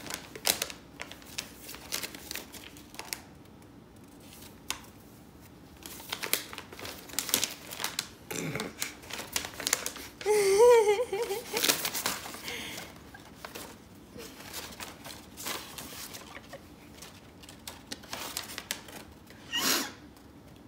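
Paper crinkling and rustling in the hands as a gift is unwrapped and its papers are unfolded, in irregular short bursts. About halfway through, a brief high, wavering vocal cry is the loudest sound.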